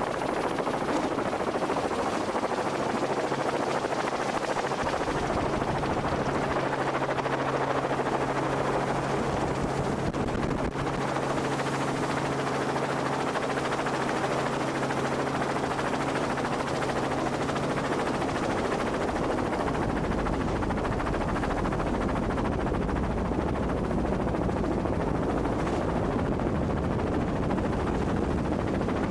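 Camera helicopter's rotor and engine running steadily in flight, with a constant rushing and chopping. A low steady hum runs through the first two-thirds and fades, leaving a deeper rumble.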